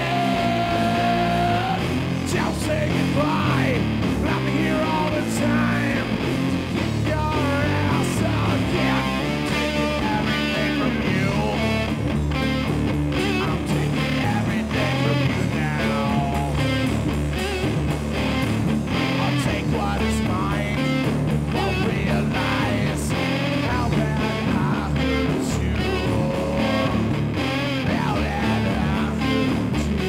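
Live rock band playing loud, with electric guitar over bass and a steady drum beat; the guitar lines bend and waver.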